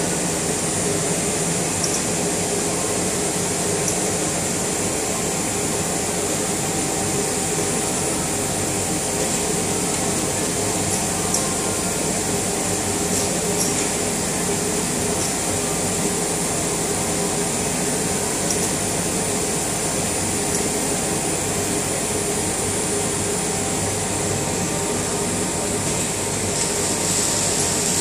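Pick-and-place machine with six Ezi-Servo axes and modular-belt conveyors running. It makes a steady mechanical noise with a few faint steady tones and occasional faint clicks. The hiss grows briefly louder near the end.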